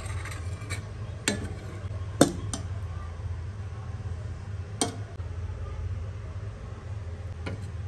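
A metal ladle clinking and knocking against a steel cooking pot and a plate while serving curry: about five short sharp clinks, the loudest a little after two seconds in, over a steady low hum.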